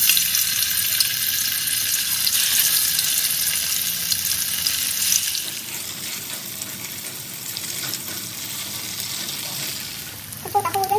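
Tofu cubes frying in hot oil in a steel wok. The sizzle is loud as the cubes go in, then settles to a quieter, steady sizzle after about five seconds.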